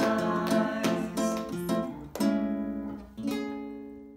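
Nylon-string classical guitar strumming the closing chords of a song, the last two chords, about two and three seconds in, left to ring and fade away near the end.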